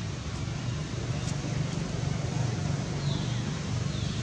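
Steady outdoor background noise with a low rumble, and two short high chirps that fall in pitch about three and four seconds in.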